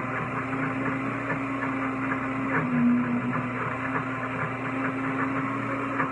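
Deluxe Cooking Blender running steadily at speed, its motor and blades churning a thick batch of roasted red pepper hummus with an even hum.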